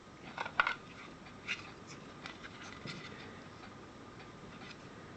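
Light clicks and taps of a plastic battery charger and its adapter plate being handled, a few sharper clicks in the first second, then fainter scattered ticks that die away to faint hiss.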